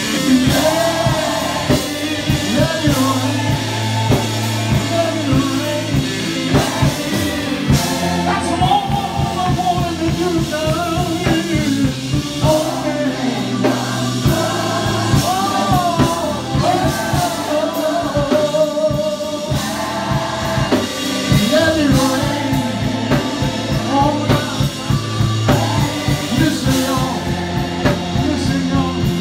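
Live gospel music: voices singing over a drum kit and bass guitar, with a fast, steady drumbeat.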